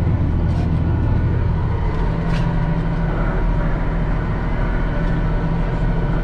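Case IH tractor's diesel engine running steadily as it pulls a planter through the field.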